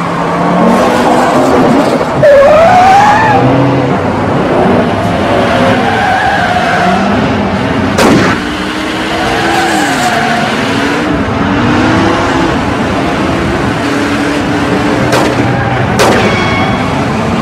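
Several car engines revving and changing pitch, with tyres skidding and squealing on an icy track. A single gunshot cracks about eight seconds in, and more sharp bangs come near the end.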